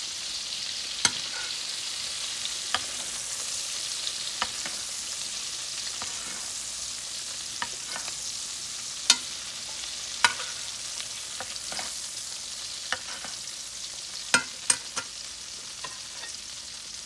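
A steak frying in butter and oil in a cast-iron skillet: a steady sizzle while it is basted. About a dozen sharp metal clinks of a spoon and fork against the pan break in, the loudest about nine, ten and fourteen seconds in.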